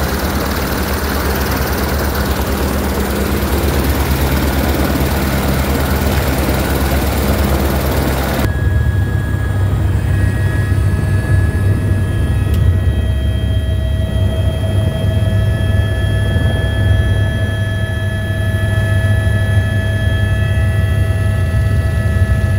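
Helicopter running close by, heard from outside: a loud rush of air over fast low thumping from the rotor blades. About a third of the way through it cuts to inside the cabin in flight, where a steady low rotor drone carries a steady turbine whine at several pitches.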